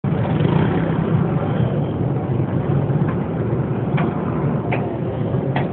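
Steady low rumble of street traffic and engines, with four short sharp clicks in the second half.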